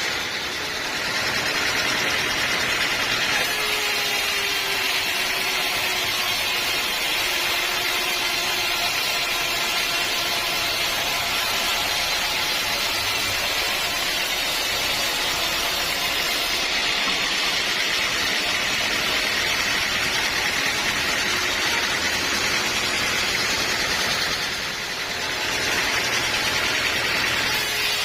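Bandsaw sawmill running steadily as it saws teak, with a continuous hiss from the blade cutting. The sound eases briefly near the start and again near the end.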